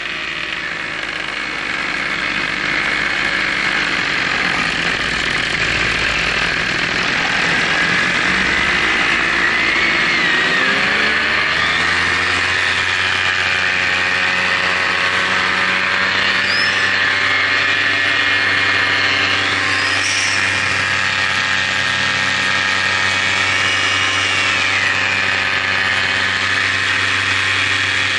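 Camera drone's electric motors and propellers running, heard from on board. The pitch dips and climbs back over the first dozen seconds as the throttle changes, then holds steady.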